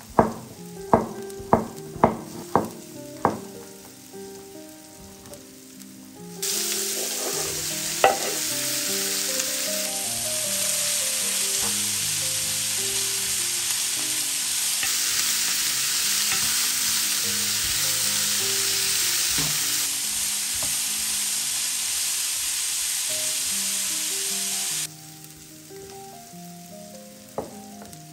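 Food sizzling in hot oil in a frying pan, starting abruptly about six seconds in and cutting off about three seconds before the end. Before it comes a short run of sharp knocks, about three a second. Soft background music plays throughout.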